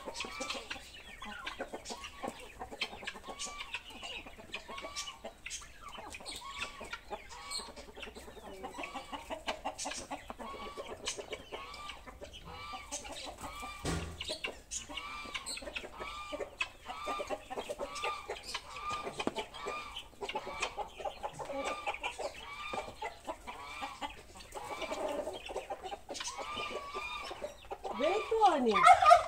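Domestic chickens clucking steadily as a flock, many short repeated calls overlapping, with a louder, falling call near the end.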